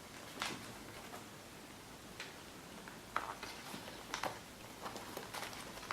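A few scattered light taps and rustles of a pair of sneakers being handled and turned over, with quiet room tone between them.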